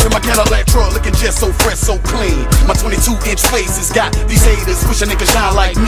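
Hip hop track: a rapped vocal over a beat with heavy bass and steady drum hits.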